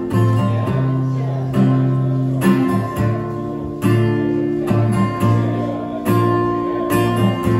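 Acoustic guitar and ukulele strummed together, playing an instrumental intro with chords struck about once a second and left ringing.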